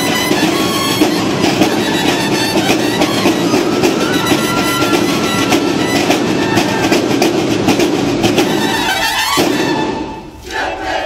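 Music with a dense, rattling beat stops abruptly about nine seconds in. A group's shout begins right at the end.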